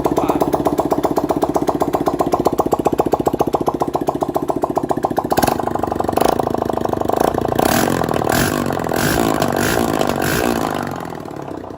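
A 160 cc single-cylinder motorcycle engine runs with its exhaust removed, freshly rebuilt with a new connecting rod. It fires in a fast, even, open beat, is revved in several short blips from about five seconds in, then dies away near the end.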